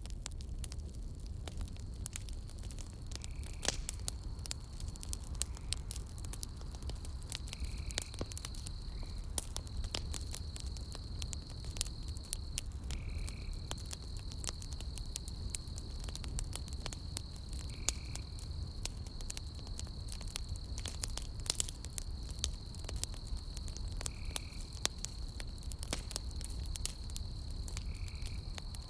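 Burning logs crackling and popping in a campfire, with a steady high insect trill that starts about a second in and a short chirp repeating every few seconds.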